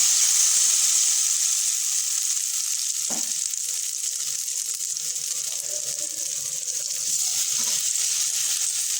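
Rice and mung dal batter sizzling in an oil-brushed kadai over a gas flame, freshly poured in: a steady high hiss, loudest at first and easing slightly.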